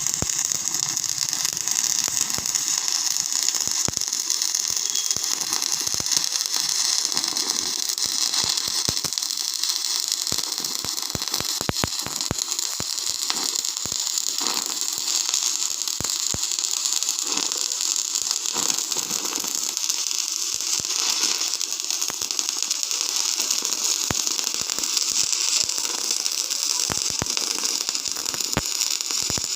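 Welding arc running steadily: a continuous hiss, strongest in the treble, shot through with irregular sharp crackles and pops.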